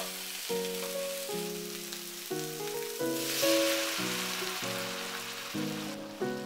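Napa cabbage and pickles sizzling in a hot frying pan. About three seconds in, the hiss gets louder as pasta cooking water is poured into the pan, then it eases to a softer bubbling. Background music with clear, evenly paced notes plays throughout.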